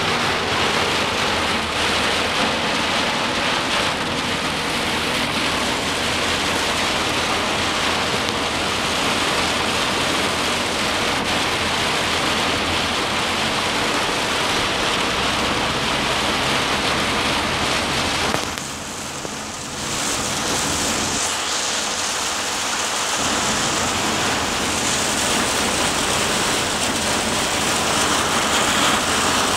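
Heavy rain beating on a vehicle's roof and windscreen, heard from inside the cabin: a loud, steady hiss that dips briefly about two-thirds of the way through.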